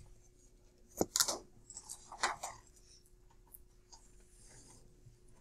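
A sharp knock about a second in, then a few short scrapes and rustles and a faint soft rubbing near the end: a cloth rag being handled and put to a classroom whiteboard.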